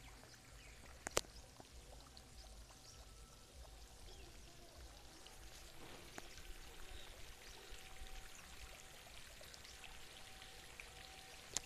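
Light rain with water dripping and trickling, many small drops ticking faintly over a soft hiss. A sharp click about a second in and another near the end stand out as the loudest sounds.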